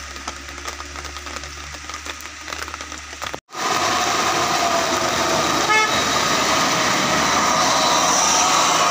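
Minibus engine pulling up a steep hairpin in heavy rain, with rain and tyres hissing on the wet road. The sound breaks off a little over three seconds in, then comes back much louder, with a short horn toot near the six-second mark.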